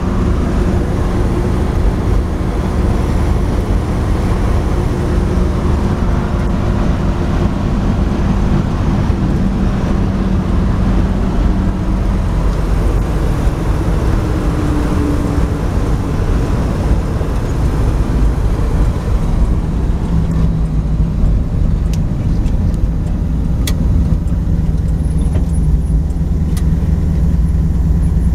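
1962 Chevrolet stepside pickup under way, heard from inside the cab: a steady engine drone with road noise. About two-thirds of the way through, the higher hiss drops away and the engine note holds steady.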